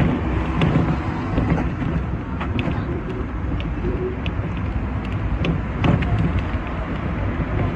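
Sixth-generation teak-bodied Hong Kong double-deck tram running on its rails, heard from on board: a steady rumble of wheels and motor with irregular sharp clicks as the wheels cross rail joints, and cars passing alongside.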